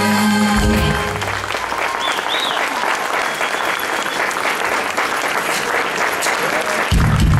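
A live band and singers end a song on a held chord about a second in, and audience applause with cheering follows. Near the end the band comes in loudly with the next number.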